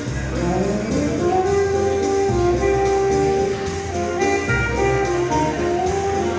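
Saxophone playing a slow melody live over a bass accompaniment. A note slides upward in the first second or so, followed by long held notes.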